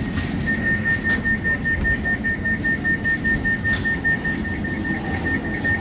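Door warning beeper on a CAF Urbos 3 tram, a rapid high-pitched beeping at about four beeps a second that starts about half a second in, over the low hum of the stationary tram.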